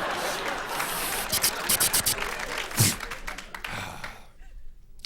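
A studio audience laughs and claps, then gives way to a run of quick mouth-made clicks and one louder thump about three seconds in. These are vocal sound effects performed into a microphone.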